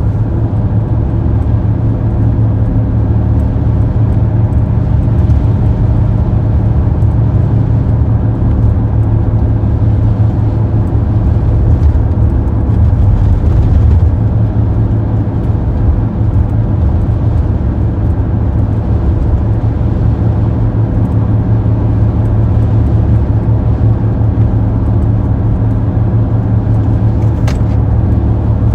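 Car driving at steady speed: constant engine and road noise with a deep low rumble, and a couple of faint ticks.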